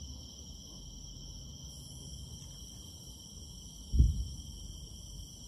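A distant firework shell bursting: one short, low boom about four seconds in. Under it, the steady chirring of night insects.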